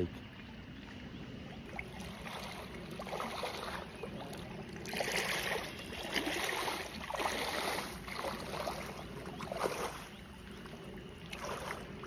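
Rubber boots wading through shallow creek water: irregular sloshing and splashing, loudest a little before halfway through.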